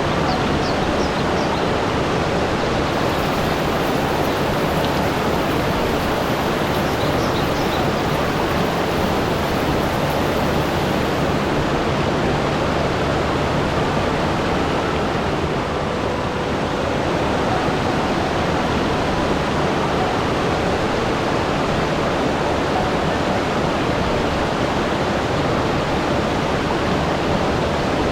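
Steady, unbroken rush of flowing water, like a waterfall or rapids, with no rise and fall of waves.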